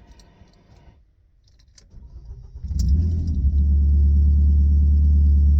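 Car engine cranked and starting: a faint click, a brief crank about two seconds in, then it catches and settles into a steady fast idle. The engine is warm, and the test follows a repair to the cylinder-3 coil wiring after a misfire.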